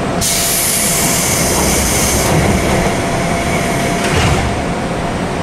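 JR West 201 series passenger doors closing: a loud rush of air from the pneumatic door engines starts just after the beginning and eases off after about two seconds, then a knock about four seconds in as the doors shut.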